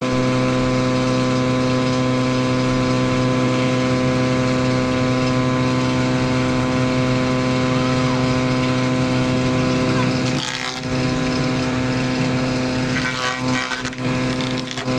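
Electric wood-planing machine running with a steady, even motor hum. From about ten seconds in the sound turns uneven, with bursts of rougher noise, as if wood is being fed through the cutter.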